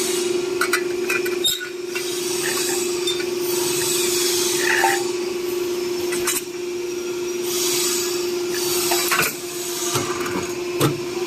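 Ladder expanding and riveting machine running its automatic cycle after the foot pedal is pressed. There is a steady motor hum throughout, with scattered clicks and knocks and several stretches of air hiss.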